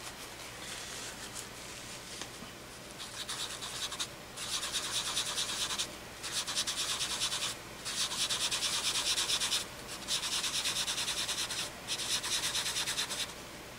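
A paper napkin rubbed quickly back and forth over graphite on drawing paper to blend and soften it: a dry, rhythmic scuffing that starts about three seconds in and comes in bouts of one to two seconds with short pauses.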